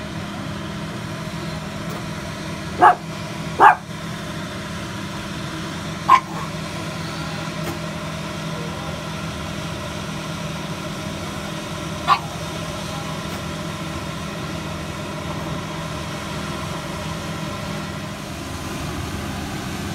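A dog barking four times, short single barks, the second pair close together, over the steady drone of a combine harvester's engine.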